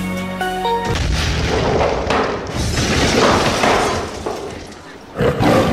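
A film sound effect. A short musical phrase ends about a second in, and a long, loud, noisy swell takes over and fades. A second one starts suddenly near the end.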